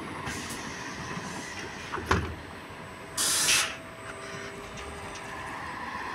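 City bus pulling up at a stop with its engine running: a clunk about two seconds in, then a short, loud burst of compressed-air hiss from the bus's pneumatics as it halts, after which the engine runs on steadily.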